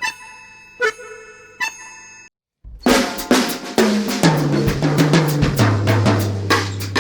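Background music: three ringing pitched notes, a brief silence, then a full band track with drums and a bass line stepping down in pitch.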